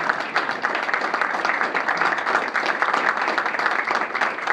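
An audience applauding: many people clapping steadily together.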